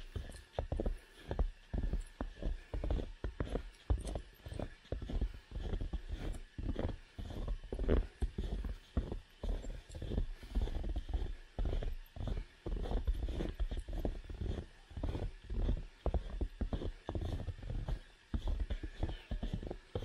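Footsteps crunching in snow, a steady walking rhythm of about two steps a second.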